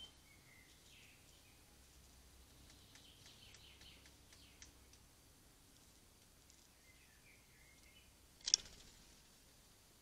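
Faint chirps of small birds, a patter of small clicks in the middle, and one sharp knock about 8.5 seconds in, as the hanging wooden feeder house is jolted and set turning.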